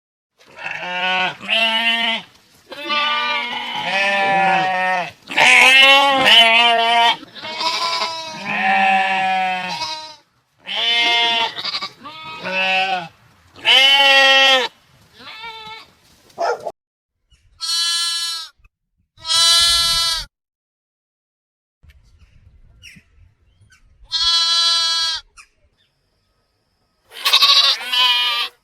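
Sheep bleating over and over: a string of wavering calls, each a second or so long, some deep and some much higher-pitched. The calls come thick at first, then spaced out, with a pause of a few seconds past the middle.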